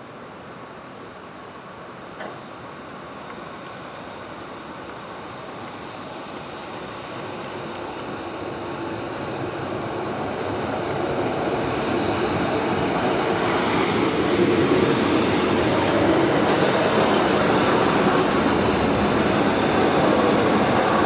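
Class 155 diesel multiple unit approaching and drawing into a station platform, its engine and wheel noise growing steadily louder over the first two-thirds and then holding. A thin high brake squeal comes in as it slows, with a sharp clank about three-quarters through.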